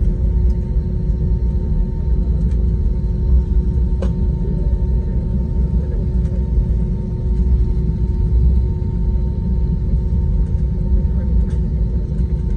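Cabin noise of an Airbus A320-family airliner taxiing: the engines' steady low rumble at taxi power with a constant hum, heard from inside the cabin, with a few faint clicks.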